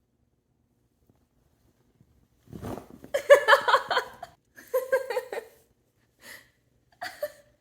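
A short low rumble, then a person laughing in several bursts, loudest a little over three seconds in and fading to short giggles near the end.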